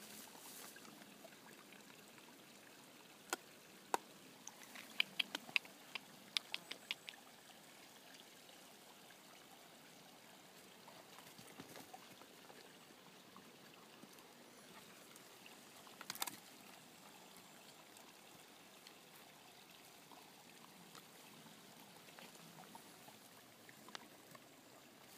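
Quiet forest floor ambience: a faint steady hiss with scattered sharp snaps and crackles of twigs and dry litter, a quick run of them about five to seven seconds in and another about sixteen seconds in.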